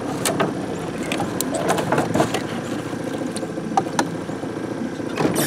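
Outboard motor on a flat-bottom aluminum boat running at idle, a steady low drone, with a few light knocks and clicks scattered through it.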